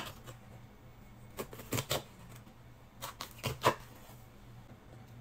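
Kitchen knife cutting green peppers on a wooden cutting board: several sharp knocks at irregular spacing as the blade slices through and taps the board.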